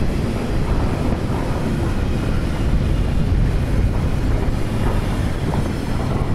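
Loaded double-deck car-carrier freight wagons rolling slowly past on the rails: a steady, loud rumble of wheels on track, with wind buffeting the microphone.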